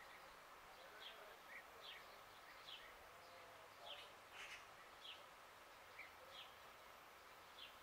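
Faint, repeated chirps of a small bird: short falling notes about every half second to a second, over a quiet outdoor background hiss.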